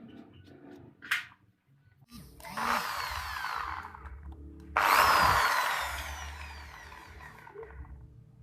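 A small power tool running in two bursts. The second is louder, starts abruptly, and tails off over a couple of seconds.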